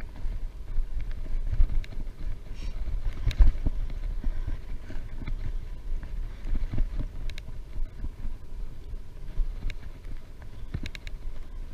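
Wind buffeting the microphone while cycling: a low, gusty rumble that rises and falls, with a few light clicks, one a few seconds in and several near the end.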